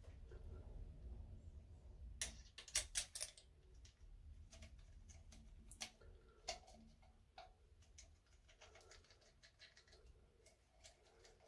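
Faint clicks and taps of hard plastic parts of a toilet cistern float valve being handled and adjusted by hand, with a quick run of sharp clicks about two to three seconds in and single clicks after.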